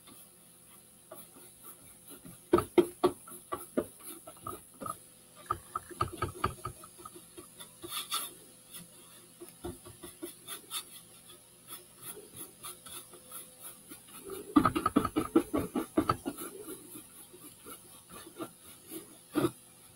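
Paintbrush scrubbing paint onto a cardboard box in quick back-and-forth strokes, in two busy bouts: about two seconds in, and again a little past the middle.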